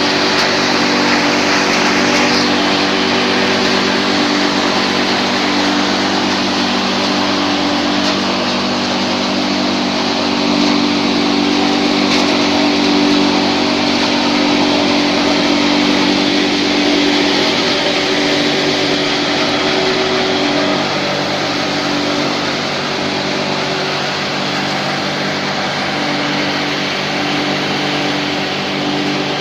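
A 22 kW wood chip hammer mill running steadily while crushing wood chips: a constant motor hum with a dense rushing noise from the chips being milled and blown through.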